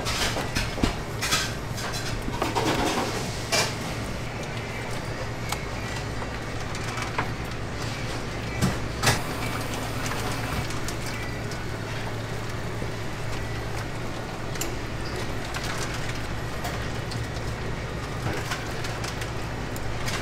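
Restaurant kitchen sounds: a steady low hum under clinks and knocks of metal utensils and dishes, several in the first four seconds and a sharper pair about nine seconds in.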